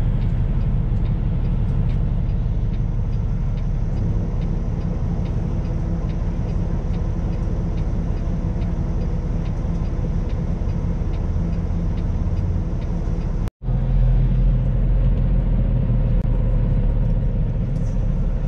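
Semi truck's diesel engine running, heard from inside the cab, with a steady light ticking from the turn signal for much of the time. Near the end, after a sudden break, the engine rumble is louder.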